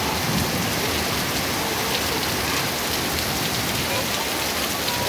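Heavy rain pouring steadily onto wet pavement, a dense hiss of countless drops with no let-up.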